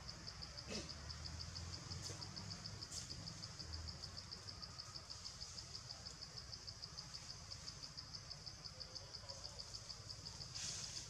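An insect chirping steadily in a rapid, even, high-pitched pulse, over a faint low rumble.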